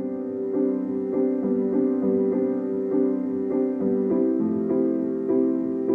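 Background music: a piano playing a gentle, evenly repeated pattern of notes, moving to a new chord about four seconds in.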